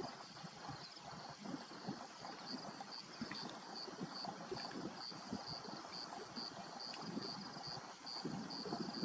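Lion chewing on a warthog carcass: an irregular run of crunches. A high chirp repeats steadily about twice a second from about two seconds in.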